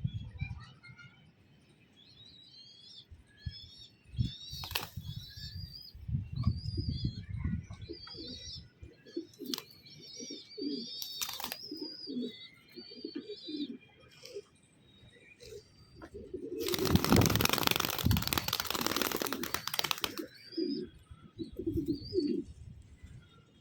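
Pigeons cooing in short repeated low calls while small birds chirp high and rapidly, with a loud flurry of wing flapping lasting about three seconds past the middle.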